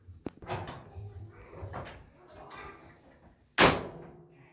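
Handling knocks on a dryer's cabinet during reassembly, then one loud bang about three and a half seconds in that rings out briefly.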